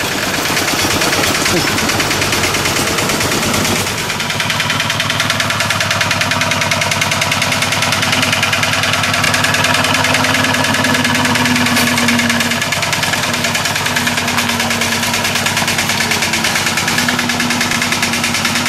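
Two-wheel walking tractor's single-cylinder diesel engine running with a rapid, even beat as it pulls a trailer loaded with people.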